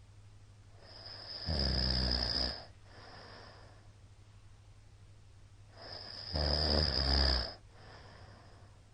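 A man snoring very loudly: two long, buzzing snores about five seconds apart, each followed by a softer breath. A steady low hum runs underneath.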